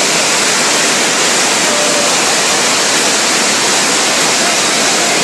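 Flash-flood torrent rushing past, a loud, steady wash of water noise.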